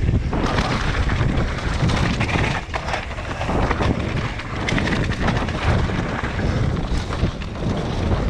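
Wind buffeting a head-mounted camera's microphone during a mountain bike descent, with the tyres and bike clattering over rough ground in many short knocks.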